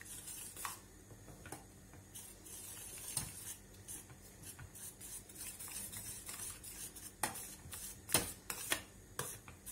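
Metal spoon stirring quickly in a stainless steel saucepan of soup, scraping and clicking against the pot's sides and bottom, with a few sharper clinks near the end.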